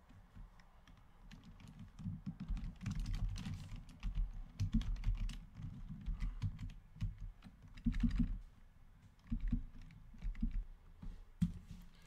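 Typing on a computer keyboard in irregular bursts with short pauses between them, the keystrokes clicking with dull thuds.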